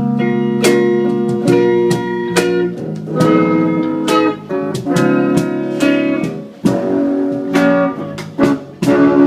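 Instrumental break of a slow love song played by a live band, led by guitar: plucked melodic notes over sustained chords, with no singing.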